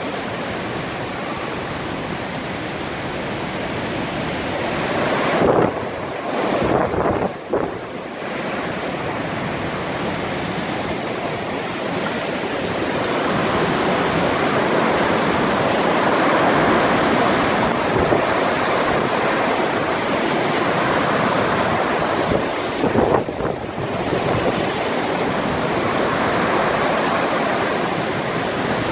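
Storm wind rushing steadily, with stronger gusts buffeting the microphone about six seconds in and again near 23 seconds.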